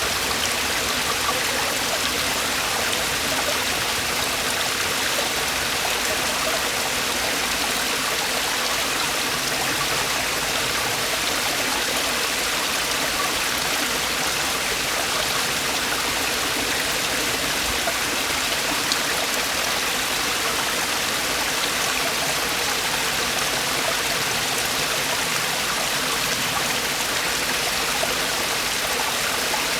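Mountain-valley stream water falling and rushing over rocks in a small waterfall: a steady, unbroken rush of water.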